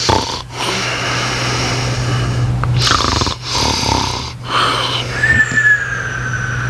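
Loud human snoring: several snoring breaths separated by short pauses. About five seconds in, a thin whistle joins the breath and slowly falls in pitch.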